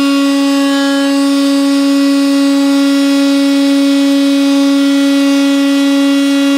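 Electric router with a bearing-guided flush-cut bit running at a steady, unchanging pitch as it cuts a 1/8 inch rabbet along the edge of a plywood boat deck.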